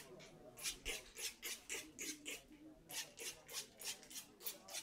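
Finger-pump spray bottle misting a dreadlock spray onto hair in quick repeated squirts, about four or five a second, in two runs with a short pause about halfway through.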